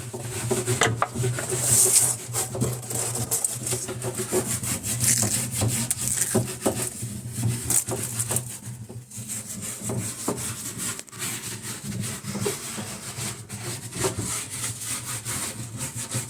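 Irregular rubbing and scraping strokes over a steady low hum.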